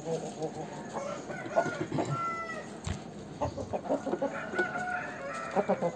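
Chickens clucking in short repeated notes, with a brief higher-pitched call about two seconds in and again near the end.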